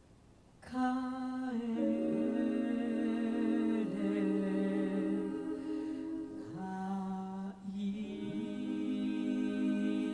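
Several voices singing wordless held chords in harmony, close to humming. They come in about a second in after a brief pause, and the chord moves to new notes every second or two.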